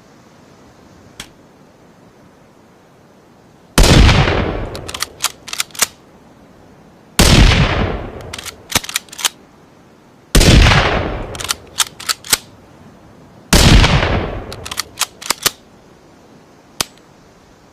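Bolt-action rifle sound effect: four shots a little over three seconds apart, each with a fading tail. After each shot comes a quick run of three or four sharp metallic clicks as the bolt is worked to chamber the next round.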